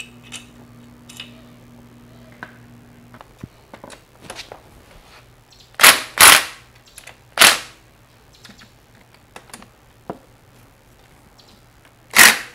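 Impact driver hammering in short bursts as it spins nuts off the cylinder head of a GY6 150cc scooter engine: two bursts close together about halfway through, another a second later, and a last one near the end, with light clicks and knocks between.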